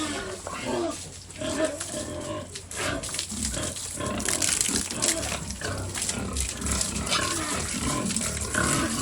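Pigs grunting, with a hissing noise that grows stronger about halfway through.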